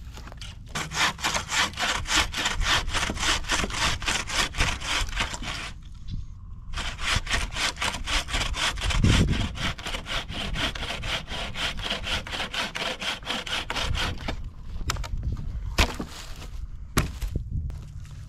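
Wooden frame saw cutting through a log in quick, even back-and-forth strokes. The sawing comes in two long runs with a short break about six seconds in. A few sharp knocks follow near the end.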